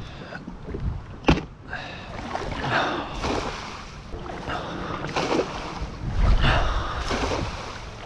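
A cast net thrown from a kayak splashes down in shallow water, then its wet hand line is hauled back in a series of pulls, with water splashing and dripping.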